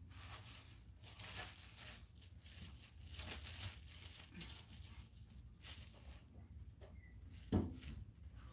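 Faint rustling and crinkling of a clear plastic packaging bag being handled, with one sharp knock near the end.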